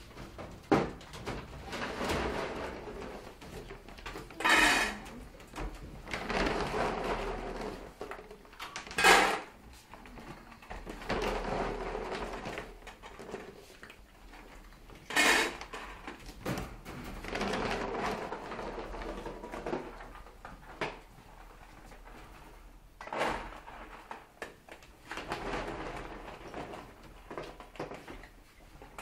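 Puppies eating dry kibble from stainless steel bowls: irregular crunching and scraping, broken by a few sharp metallic clanks of the bowls, the loudest about nine seconds in.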